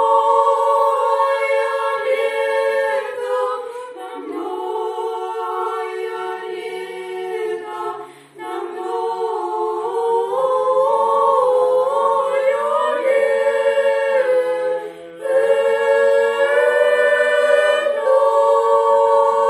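A church choir singing a cappella in long held chords, with short breaks between phrases.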